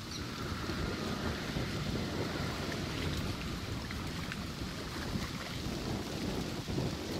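Wind buffeting the microphone: a steady, gusty low rush with no clear pitch.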